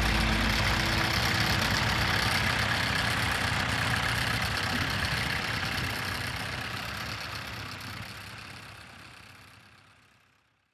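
Engines of several Fordson tractors running under load as they plough together, a steady mixed engine noise that slowly fades out over the last four seconds.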